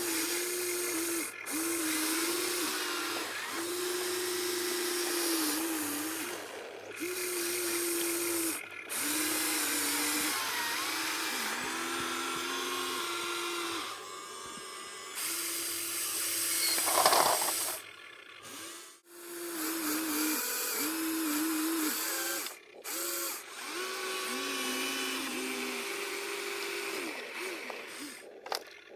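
Small electric motors of RC excavator and truck models whining in short stop-start runs, the pitch stepping up and down as the machines move. A brief louder burst of noise comes about seventeen seconds in.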